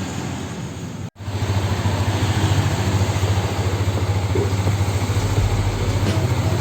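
Yamaha Vixion motorcycle engine idling steadily. It begins with a sudden cut about a second in, and its low hum pulses evenly.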